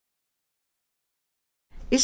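Near-total silence, then a voice begins saying the Iñupiaq word 'Isavik' just before the end.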